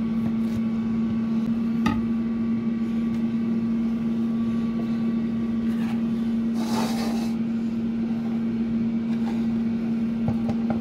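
Air fryer running as it preheats: a steady hum of its fan at one constant pitch. A single knife tap on a wooden cutting board comes about two seconds in, and a brief scraping rustle comes about seven seconds in.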